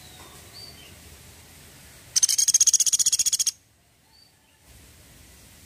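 A small woodpecker gives its rattling call: a loud, fast burst of high, rapidly repeated notes lasting just over a second, about two seconds in. Faint short chirps come before and after it.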